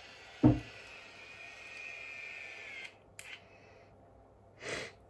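Beach Waver rotating curling iron's small motor whirring as the barrel winds a strand of hair, stopping about three seconds in, followed by a click. A loud knock from handling comes about half a second in, and a short soft noise near the end.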